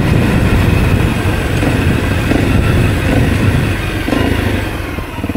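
Honda CRF250L's single-cylinder four-stroke engine running on the move. Its sound drops off near the end.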